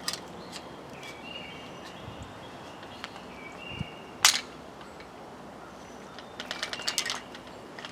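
A single sharp crack about four seconds in, a 115-grain SIG hollow point fired from a 9mm AR-style carbine, with light clicks of handling before and after it. Faint short high chirps sound in the background.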